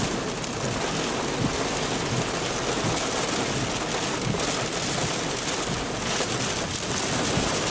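Steady rain and storm noise, an even wash with a few scattered sharp drop hits.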